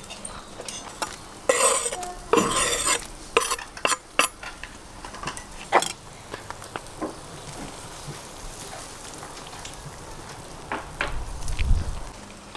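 Metal utensils clinking and scraping against a cooking pot over food sizzling. The knocks come irregularly, thickest in the first six seconds, with a few more near the end.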